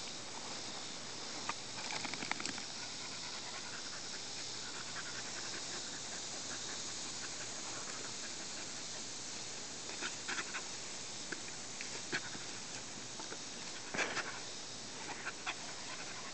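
A small dog panting, with short scuffling rustles in clusters, about two seconds in, around ten seconds and again near fourteen seconds, over a steady hiss.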